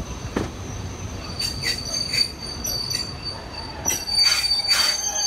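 Passenger coach of a heritage train rolling along, heard from an open carriage window: a low running rumble with a thin, steady high wheel squeal from about a second in, and a series of sharp clatters and squeals, loudest near the end.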